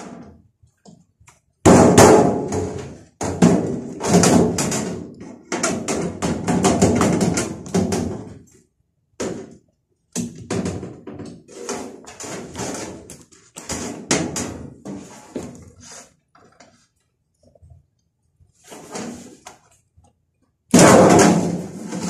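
Thin sheet-metal outer cover of a Midea microwave oven being worked loose and slid off the cabinet once its screws are out: a run of scraping and rattling of thin metal, loudest about two seconds in and again near the end.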